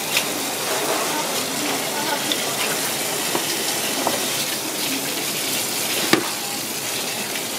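Tap water pouring in a steady stream onto a whole fish and a plastic cutting board, hissing and splashing, with a few knocks from the fish being handled; the sharpest knock comes about six seconds in.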